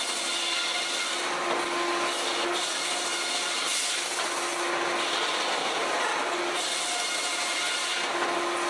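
Sawmill band saw cutting lengthwise through a log as the carriage feeds it: a steady rasping hiss with a faint low hum that comes and goes.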